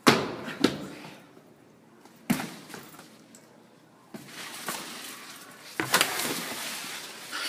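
Sneakers smacking down on a hard floor as a person lands a jump from a flight of stairs, followed by two more sharp knocks. Later comes a longer rustling and scuffling as the leaves of a potted plant are grabbed and shaken.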